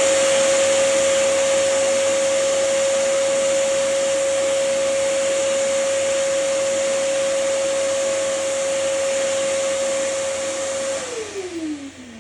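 Vacuum cleaner running steadily with a constant motor whine over a hiss. About 11 seconds in it is switched off and the motor winds down, its pitch falling.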